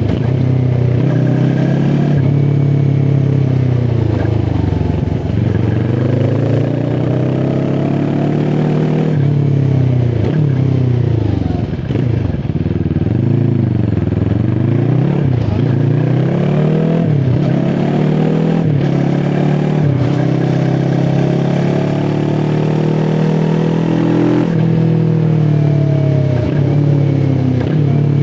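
QJ SRT 450 RX motorcycle engine under way, its pitch climbing and dropping again and again as the rider accelerates, changes gear and rolls off the throttle.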